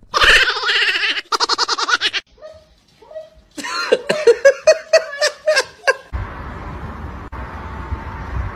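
A person laughing hard in a run of quick ha-ha bursts from about three and a half seconds in, after a couple of seconds of harsh, noisy sound. From about six seconds on there is only steady background noise with a faint steady hum.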